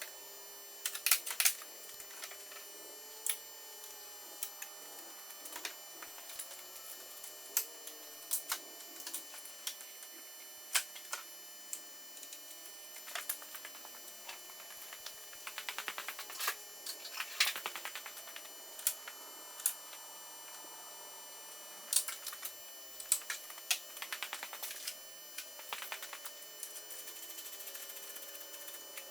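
Hand tools working on a pickup truck's front bumper bolts: irregular metallic clicks and clinks, with short runs of rapid clicking like a socket ratchet, about a second in, around the middle and again near the end.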